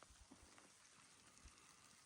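Near silence, with a few faint low thumps.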